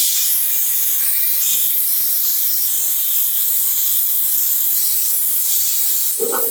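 Steady high-pitched hiss of pressurised air or spray released from a nozzle, starting abruptly and cutting off sharply near the end.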